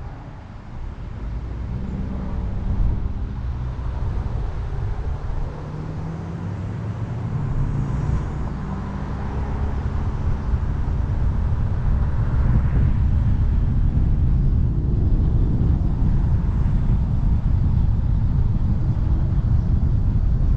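Ford Fusion driving on the road. The engine note rises as the car speeds up over the first several seconds, then steady tyre and wind noise grows louder from about halfway.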